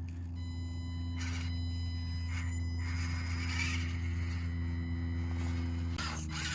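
Background music with sustained, buzzy held tones; the chord changes about six seconds in.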